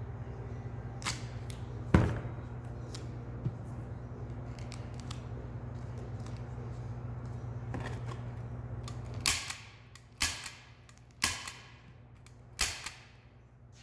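Hand staple gun firing: a single sharp shot about two seconds in, then four more in the last few seconds, roughly a second apart. A steady low hum underneath stops about nine seconds in.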